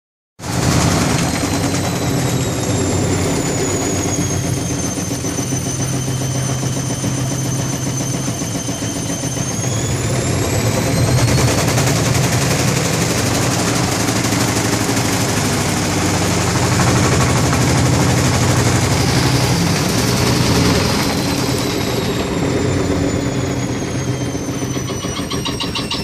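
Whirlpool top-loading washing machine spinning hard while badly unbalanced, its cabinet rattling and knocking rapidly against the tile floor as the machine shakes and walks. Over it a high motor whine sinks, climbs again about ten seconds in, and sinks once more near the end.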